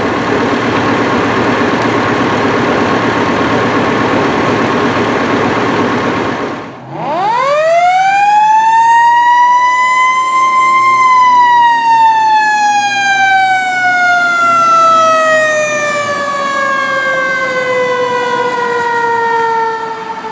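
Steady drone of an engine and pump running, which cuts off about seven seconds in. Then a mechanical fire-truck siren winds up, climbing in pitch for about four seconds, and coasts slowly down in one long falling wail.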